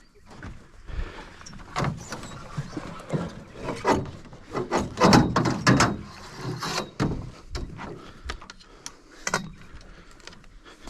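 A string of irregular knocks and clunks, with a cluster of the loudest ones around five seconds in.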